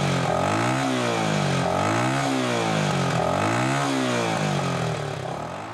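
1980 Honda XL250S single-cylinder four-stroke motorcycle engine being revved, its pitch rising and falling about three times, then fading near the end.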